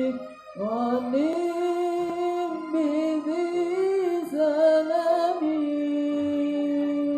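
A male student's solo voice singing a slow, ornamented melody with long held notes. It breaks briefly for a breath about half a second in and ends on a long sustained note.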